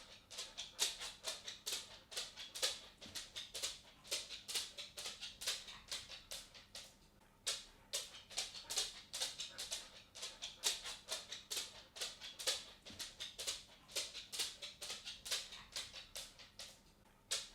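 A dog's claws clicking on a wooden floor as it walks: quick, uneven taps at about four or five a second, with a short lull about six or seven seconds in.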